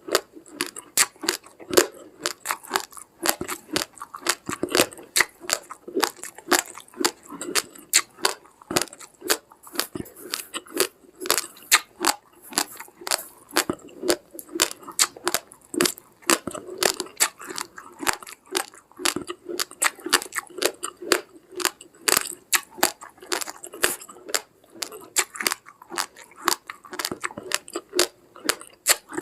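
A person chewing uncooked raw rice grains: a dense, irregular crunching, several crunches a second.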